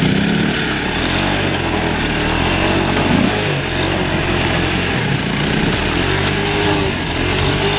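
Small ATV engines, a four-wheeler and a three-wheeler, running steadily at idle, with a few brief, light revs.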